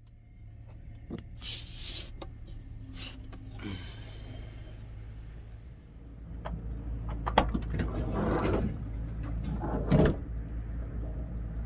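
Knocks and clatter of someone moving about at the open sliding side door of a Damas minivan camper, over a steady low hum, with two louder knocks in the second half.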